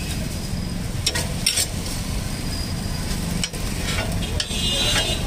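Dosas sizzling on a hot flat griddle while a metal spatula scrapes and taps across them, spreading the topping. Short, sharp scrapes stand out about a second in and again near the end.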